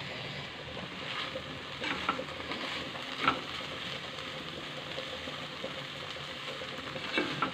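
Bathua greens (beto shak) and potatoes sizzling in a nonstick kadai over a low flame while a slotted spatula stirs through them, with a few light scrapes and knocks of the spatula on the pan.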